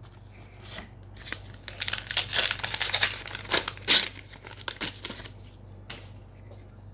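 A trading-card booster pack wrapper being torn open and crinkled by hand. There is a dense run of crackling rustles lasting about four seconds, followed by a few faint handling clicks.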